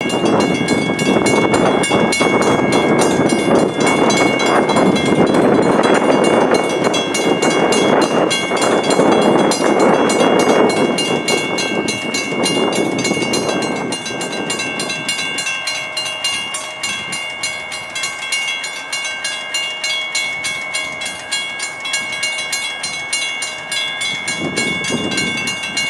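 Railroad crossing warning bell ringing with rapid, even strikes while the crossing signals are active. For about the first eleven seconds a loud rushing noise lies under it and then fades.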